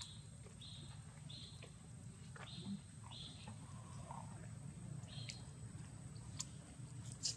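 A string of short, high-pitched chirping calls, each lasting about a third of a second and repeating every half second or so with a pause midway, over a steady low hum, with a few sharp clicks near the end.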